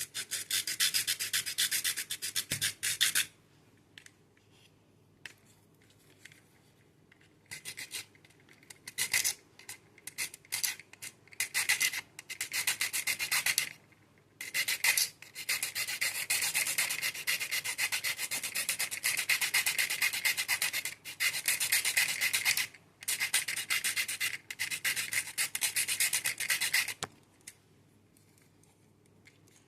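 A mini grinder grinding into plastic, a high scratchy rasp that comes and goes in bursts. It runs in short strokes through the first half and then cuts almost continuously for about twelve seconds before stopping near the end.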